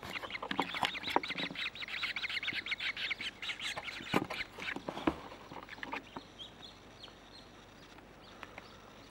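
Grebe chicks begging for food with a rapid, high-pitched stream of peeping calls that thins out after about four seconds and fades by about six. A couple of sharp knocks come around four and five seconds in.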